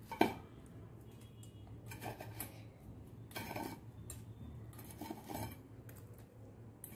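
Kitchen utensils clinking and scraping against a dish as fried bread slices are put in. A sharp clink comes just after the start, then a few softer scrapes and knocks.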